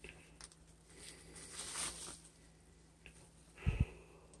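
Faint handling of a freshly cut block of ballistic gelatin lying on plastic wrap: a soft rustle about two seconds in, then two low thumps in quick succession near the end as the gel halves are lifted and moved.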